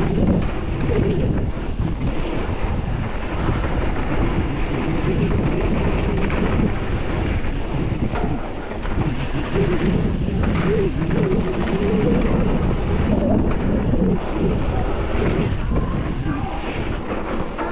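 Hardtail mountain bike riding down a dirt singletrack: steady wind buffeting the camera microphone over tyre noise on the dirt and the bike rattling over bumps.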